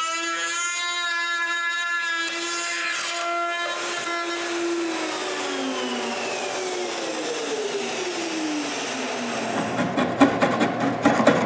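Plunge router running at a steady whine, then switched off about four seconds in, its pitch falling as the motor spins down over several seconds. Near the end, sharp taps and scraping of a chisel paring wood.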